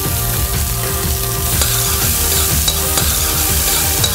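Diced onions and seared duck breasts sizzling in a frying pan as the onions are stirred to start caramelising them. The sizzle grows brighter about a second and a half in.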